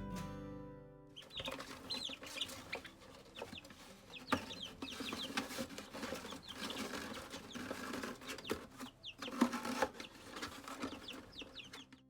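Baby chicks peeping over and over in short high chirps, with scuffling and light knocks from movement in the brooder.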